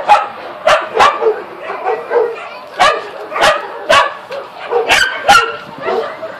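A dog barking in short, sharp yips, about eight in an uneven series, with fainter whining between them.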